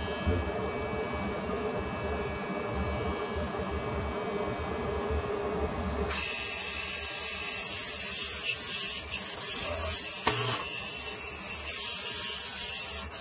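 Electric hair clippers buzzing steadily. About six seconds in, a loud steady hiss starts and continues over the buzz.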